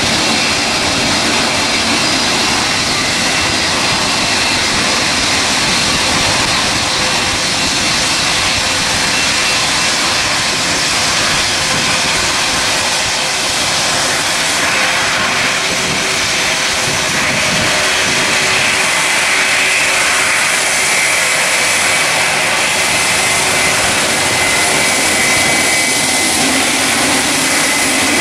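Emirates Boeing 777's twin jet engines running at taxi power as the airliner taxis onto the runway: a steady rushing noise with a high whine over it, a little brighter in the second half.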